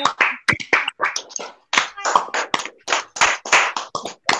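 Several people clapping their hands over a video call, an uneven, loose patter of sharp claps, several a second, varying in loudness.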